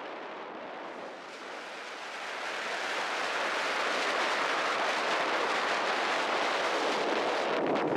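Strong wind blowing in a steady rush, rising in a gust about two and a half seconds in.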